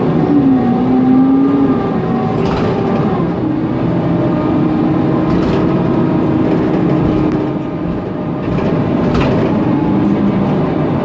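Cabin sound of a Mercedes-Benz Conecto NGT city bus under way: its compressed-natural-gas OM 936 G engine and loud cooling fan running, with tones that glide and shift as the bus changes speed. Three short sharp knocks come through.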